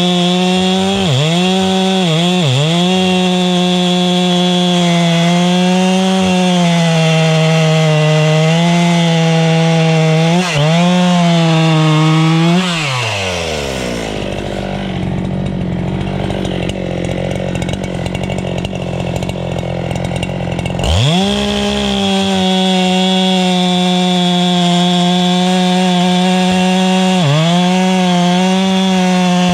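Two-stroke chainsaw cutting through a log at full throttle, its pitch briefly dipping a few times as the chain bogs down in the wood. About halfway through, the engine drops to idle for several seconds, then revs back up and keeps cutting.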